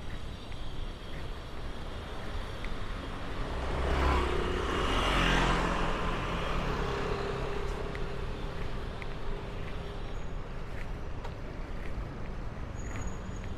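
City street traffic: a motor vehicle passes close by, swelling to its loudest about four to five seconds in, then fading back into the steady background hum.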